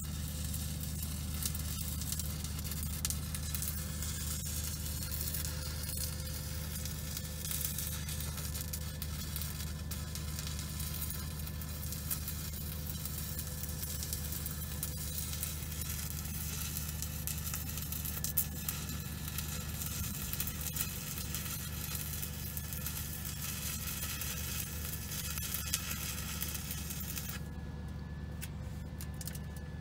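Stick welding arc from a Deko welder crackling and sizzling steadily as the rod burns into old, rusty steel, over a steady low hum. The arc cuts off suddenly about two seconds before the end.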